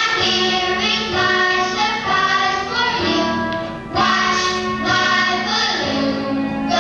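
Music for a children's dance routine: a song with a child-like singing voice over instrumental accompaniment, running in short phrases with a brief dip about four seconds in.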